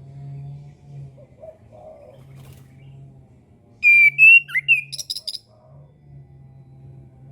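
Chestnut-capped thrush (anis kembang) singing one short phrase about four seconds in: a few clear sliding whistles, then a quick run of high chattering notes. A low hum runs underneath.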